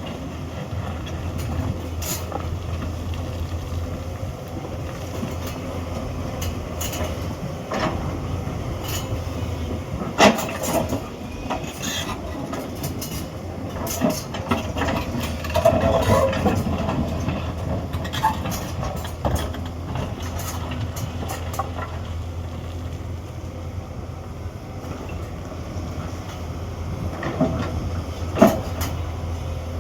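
Hyundai 210 hydraulic excavator's diesel engine running steadily under work. Scattered sharp knocks and clanks come over it, loudest about ten seconds in and near the end.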